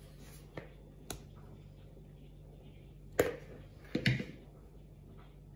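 A few light clicks and knocks of kitchen utensils being handled over a low steady hum: two faint ones within the first second or so, then two louder ones about three and four seconds in.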